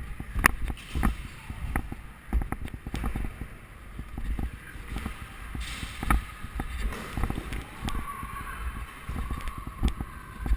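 Scooter riding over pavement: wheels rumbling with irregular clacks and knocks, wind buffeting the microphone.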